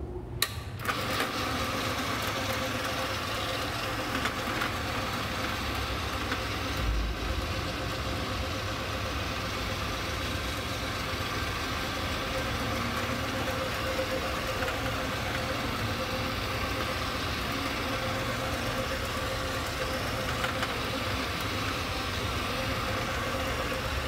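Electric low-moisture carpet cleaning machine switched on with a click about half a second in, then running steadily with a constant motor hum as it is worked across the carpet.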